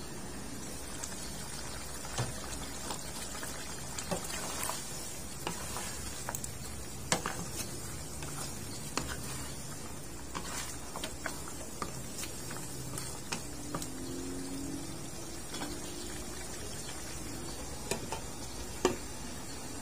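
Pork ribs simmering in sauce in a wok: steady bubbling with scattered pops and taps as a spatula stirs them. A sharper clink near the end as the glass lid goes back on.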